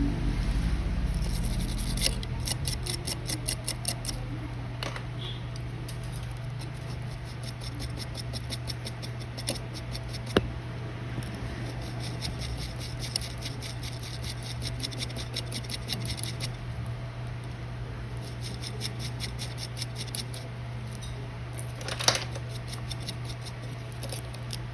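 Fine, fast scratching and small clicks of hand-tool work on a phone, over a steady low hum. There is a sharp click about ten seconds in and another near the end.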